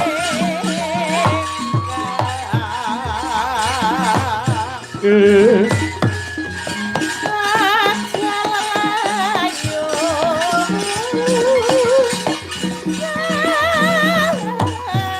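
Javanese gamelan music of the kind that accompanies wayang kulit: dense percussion under a long melodic line that wavers with a wide vibrato, like a sung line.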